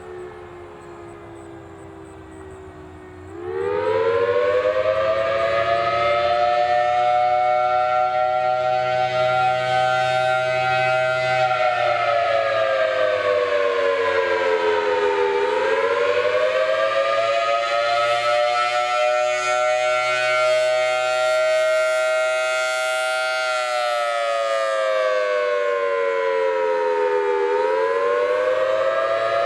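Federal Signal Thunderbolt 1000T outdoor warning siren sounding a rising-and-falling wail, the attack signal. It starts quiet and falling in pitch. About three seconds in it turns much louder and climbs, then holds, sinks, climbs and holds again, with one more dip and rise near the end.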